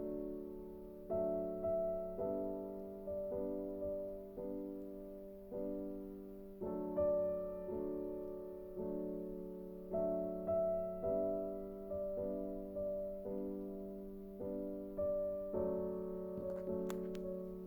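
Soft background piano music, slow chords struck about once a second, each fading away before the next.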